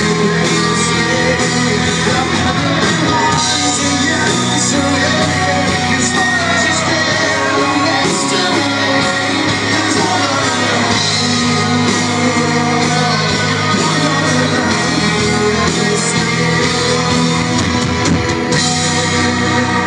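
Live rock band playing the end of a song, with electric guitar and wordless sung vocals, echoing in a large concert hall.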